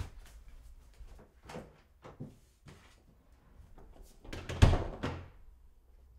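A few faint footsteps and knocks, then a door shutting with a heavy thump and a brief rattle about four and a half seconds in.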